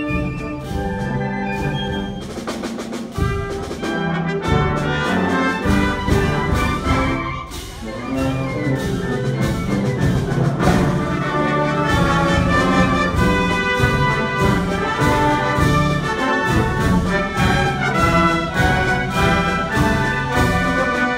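Symphonic wind band playing a festero pasodoble live: brass and woodwinds over regular drum strokes, easing off briefly about eight seconds in before coming back in full.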